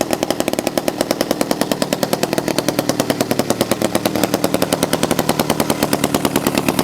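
Restored 1965 Landoni L 98 chainsaw's 98cc two-stroke engine running steadily, with a rapid, even popping of about a dozen beats a second.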